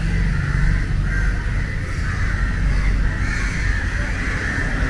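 Crows cawing over a steady low rumble.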